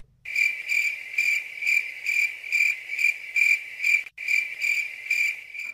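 Cricket-like insect chirping: a steady high trill that pulses about twice a second, with a brief break about four seconds in.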